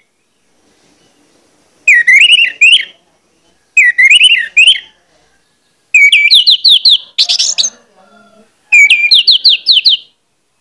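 Orange-headed thrush singing four loud song phrases about a second each, with silent gaps between them. The first two are warbling, quick up-and-down notes; the last two are runs of about five quick rising slurred whistles. A brief harsh noise comes between the third and fourth phrases.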